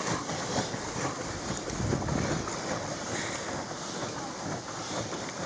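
Wind buffeting a phone microphone over the wash of water around a pedal-driven paddle boat, with a stronger gust about two seconds in.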